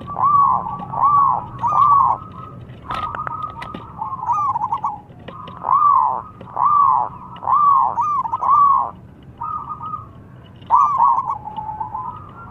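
Zebra dove (perkutut) cooing: phrases of quick, arched, rolling notes repeated several to the second, broken by short pauses. A few sharp clicks come about three seconds in.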